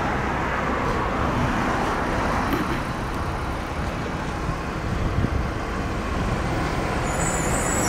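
Steady road traffic noise: a low, even rumble of passing vehicles, with a few brief high-pitched chirps near the end.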